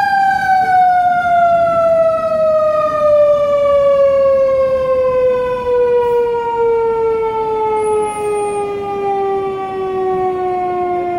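Fire engine siren sounding one long tone that falls slowly and steadily in pitch.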